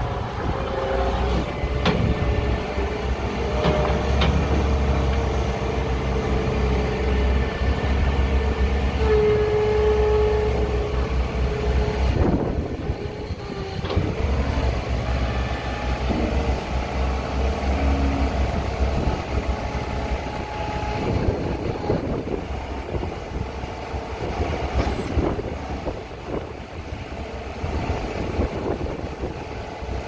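New Holland LS170 skid steer loader's turbo diesel engine running as the machine drives and raises its loader arms. The engine eases off briefly about halfway through, then picks up again.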